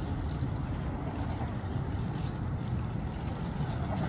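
Steady low rumble of trams and street traffic, with no single distinct event standing out.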